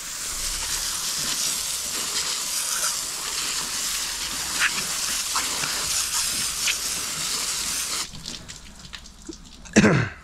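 Garden hose spray nozzle spraying water onto a scaled flounder on a cleaning table, a steady hiss that cuts off about eight seconds in. A sharp knock follows near the end.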